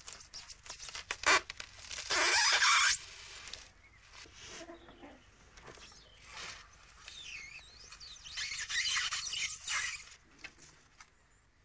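Expanded polystyrene sheets squeaking and scraping as a giant needle is pushed through them and rope thread is drawn through the holes, in irregular bursts. The loudest is a harsh scrape about two seconds in, and a run of high, wavering squeaks comes later.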